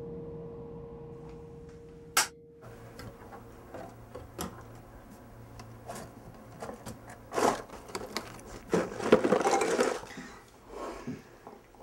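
A held ringing tone fades out and is cut off by a sharp click about two seconds in. Kitchen handling noises follow as cereal boxes are taken from a wooden cupboard, with scattered knocks. Near the end, dry cereal pours from a box into a bowl, the loudest sound.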